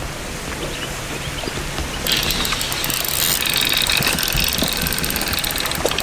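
Large spinning carp reel being cranked under load while a hooked carp is played, giving a fast ticking whirr from its gears. The winding starts about two seconds in and grows louder.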